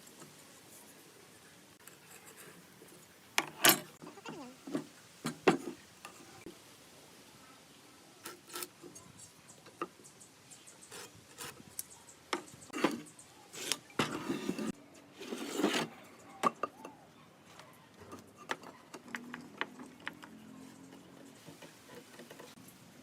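Wood and hand tools knocking and clicking as they are handled: scattered sharp knocks at an uneven pace, the loudest a few seconds in and again around the middle, with a faint low hum near the end.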